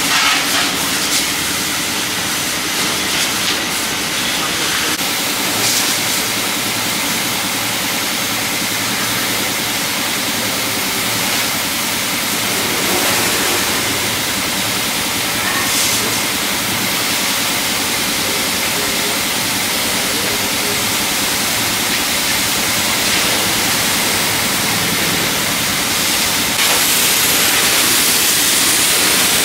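High-pressure washer spray gun hissing steadily as its jet hits a car's paintwork, first through a foam cannon and then as a plain water rinse. The spray gets louder a few seconds before the end.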